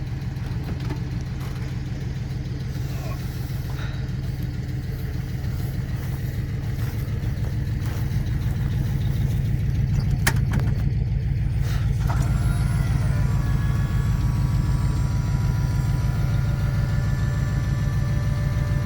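A vehicle engine running with a steady low rumble. About twelve seconds in, a higher whine rises and then holds, and the sound gets a little louder, as when the vehicle picks up speed.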